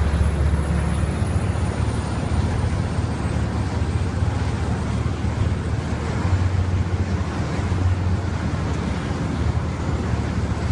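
Scania-engined 250 kVA diesel generator set in a super-silent soundproofed canopy running steadily: an even low engine hum with a constant rushing hiss over it.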